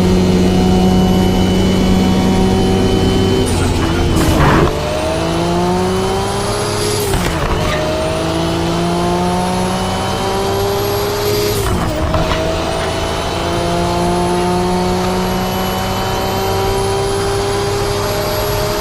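Nissan Skyline GT-R R34's twin-turbo RB26DETT straight-six pulling hard through the gears. It holds a steady note for the first few seconds, then climbs in pitch and drops sharply at each upshift, about four and a half, seven and a half and twelve seconds in. Each climb in a taller gear lasts longer, and a faint high whistle rises with the revs.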